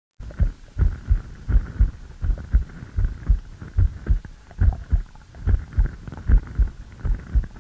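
Human heartbeat played back: a steady run of low thumps in lub-dub pairs at roughly 75 beats a minute. It starts just after the opening and cuts off abruptly near the end.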